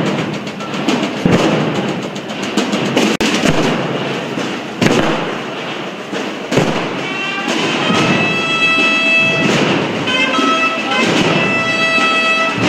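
Procession band: massed drums beating a dense roll with heavy thumps. About seven seconds in, brass instruments join over the drums, playing held notes.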